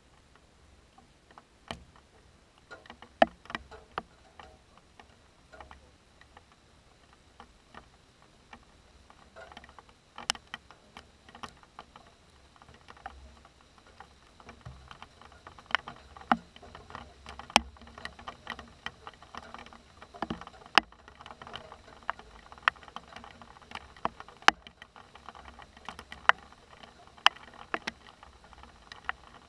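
Scattered raindrops ticking sharply on a hard surface close to the microphone, irregular and uneven in loudness, sparse at first and coming more often from about ten seconds in: the first drops of an approaching thunderstorm.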